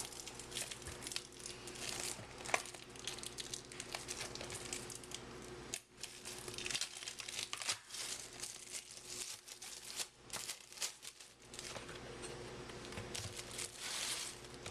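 Plastic wrapping on a sealed box of baseball cards being torn open and crumpled by hand: irregular crinkling and tearing, pausing briefly now and then.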